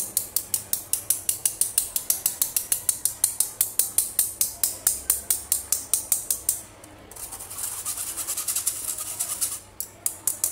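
Wire whisk stirring flour through a stainless-steel mesh sieve: a rhythmic scraping tick against the mesh, about four or five a second. For a few seconds in the second half it turns into faster, denser rasping.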